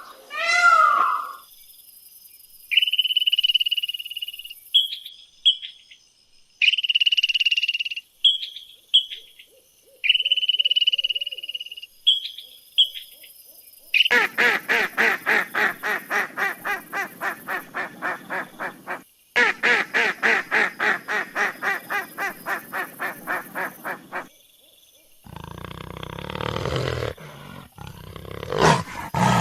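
A series of different animal calls. First come several held, high whistled notes with short chirps between them. About halfway through, a rapid pulsed call starts at about three pulses a second, and near the end a rougher, lower call follows.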